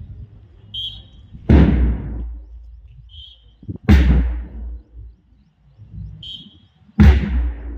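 Deep drum beats played over a loudspeaker, three of them about two and a half seconds apart, each loud and ringing on. Each beat comes just after a short high tone; together they cue the next drill movement.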